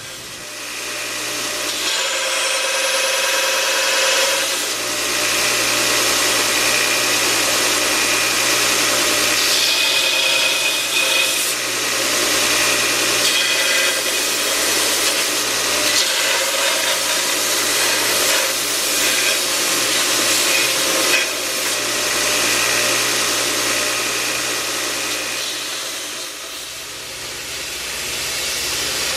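Belt grinder running while a meat cleaver's wooden handle, walnut, is sanded down against the moving belt. A steady motor hum sits under the rasp of the belt on the wood, which swells and eases as the handle is pressed on and drawn off.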